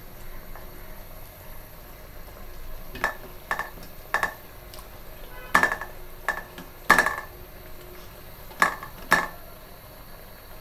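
Spoon knocking against a metal cooking pot while stirring: about eight sharp, ringing clinks, several in pairs and irregularly spaced.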